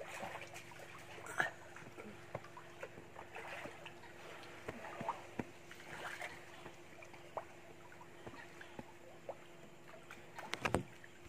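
Faint lapping and small splashes of swimming-pool water over a faint steady hum, with a few sharper clicks near the end.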